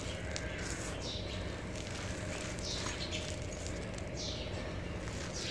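Dry, gritty soil trickling through fingers and landing on a heap of loose dirt, in several short pours over a steady low background hum.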